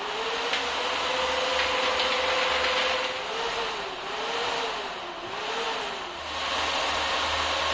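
The three 92 mm fans of a laptop cooling pad running at high speed: a loud, steady rush of air with a hum tone. About three seconds in, the hum dips and rises three times as the speed-controller knob is turned, then settles slightly higher.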